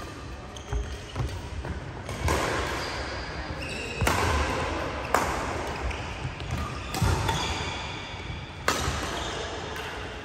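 Badminton rally: rackets striking a shuttlecock back and forth, about six sharp hits a second or two apart, each echoing around a large hall, with shoes squeaking on the court between shots.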